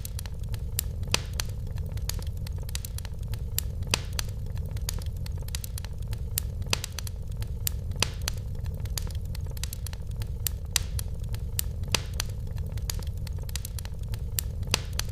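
Wood fire crackling in a fireplace: frequent sharp, irregular pops and snaps over a steady low rumble.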